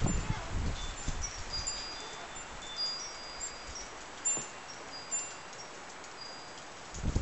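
Light, high chiming notes ringing here and there, each short and steady in pitch, with low knocks and rustling at the start and again near the end.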